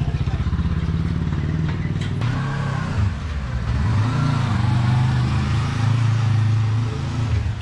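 A motor vehicle's engine running, with a rapid low pulsing for the first three seconds that gives way to a steadier hum.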